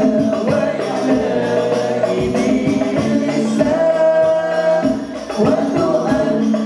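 Sholawat sung through a PA system over an al-Banjari ensemble of rebana frame drums beating a steady rhythm, the young male voice holding a long note about four seconds in.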